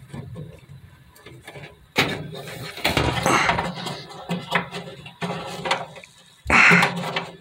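Handling noise from a hand working among the wiring and plastic connectors at the back of a dryer's blower housing: rustling and scraping with many sharp clicks. It starts suddenly about two seconds in, and a short, louder rush of scraping comes near the end.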